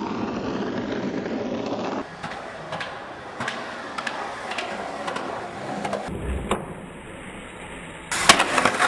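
Skateboard wheels rolling over concrete, then scattered clacks of the board. Near the end a loud clatter as the skateboard comes down hard on concrete.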